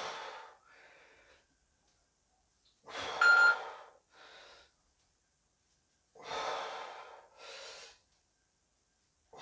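A man breathing hard through tricep push-ups: three heavy breaths about three seconds apart, each followed by a fainter second breath.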